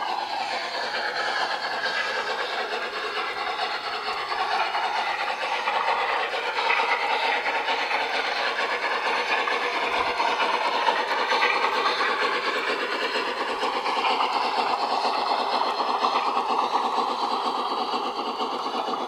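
1:22.5-scale garden railway model steam train running along outdoor track. It gives a steady, fast rhythmic rattle of wheels and drive with some hiss.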